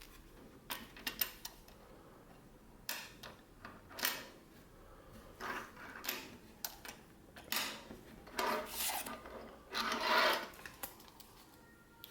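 Irregular rustling and scraping of hands handling surprise-egg wrappers and plastic capsule or toy pieces, in short bursts that grow louder and longer toward the end.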